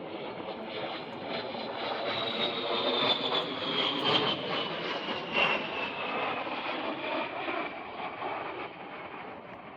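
A-10 Thunderbolt II's twin TF34 turbofan engines on a fly-by. The jet noise builds to its loudest about four to five seconds in, with a high whine falling steadily in pitch as the aircraft passes, then fades.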